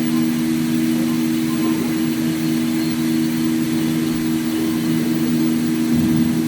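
CNC plate sawing and milling machine running with a steady, unchanging hum.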